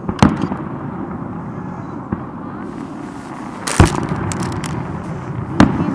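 Aerial firework shells bursting: three sharp bangs, a quarter second in, near four seconds and just before the end, the middle one loudest and followed by a few faint crackles, plus a weaker bang about two seconds in, over a steady background noise.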